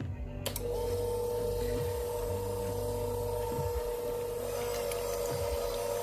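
Electric hand mixer switching on with a click about half a second in, then running steadily at one speed, its beaters whisking raw eggs in a bowl.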